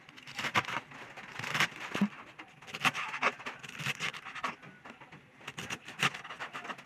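Kitchen knife shredding a hand-held wedge of raw cabbage: a run of crisp, irregular cutting crunches as thin strips are shaved off.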